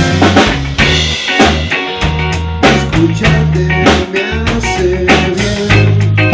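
Rock band playing: electric guitar over a drum kit, with frequent snare and cymbal hits and low held bass notes underneath.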